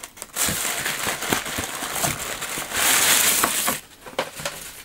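Packing paper rustling and crinkling as it is handled and pulled out of a gift box. The rustling comes in irregular crackles, louder for about a second around three seconds in.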